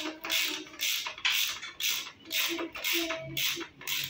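Ratchet wrench worked back and forth on a bolt at a new motorcycle's footrest bracket, each stroke a quick run of pawl clicks, at about two and a half strokes a second.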